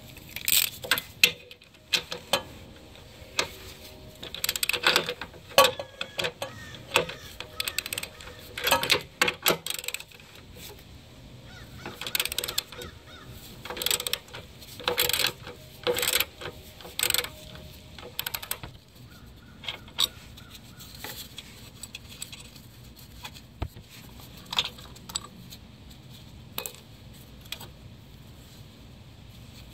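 Hand ratchet with a 15 mm socket clicking in bursts as the stabilizer bar bushing bracket bolts are loosened, with metallic clinks of socket and bolts; the clicking thins out in the last third.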